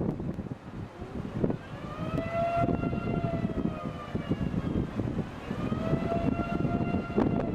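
Outdoor civil-defence tornado warning siren wailing, its pitch rising, holding and falling twice, over wind noise on the microphone.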